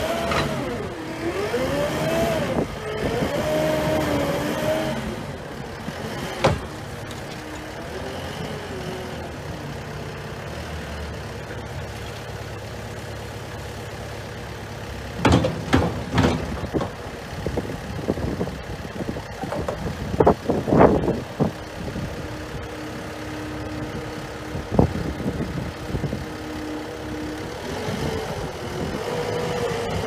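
Cat 299D2 compact track loader's diesel engine working under hydraulic load while it digs and pushes dirt. The engine note rises and falls for the first few seconds, then runs steady, with sharp clanks and knocks bunched around the middle.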